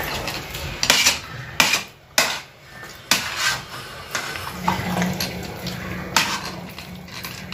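Steel spoon scraping and clacking against a steel cooking pot as thick, sticky cooked wheat dough is stirred and lifted hard, in a series of irregular sharp knocks.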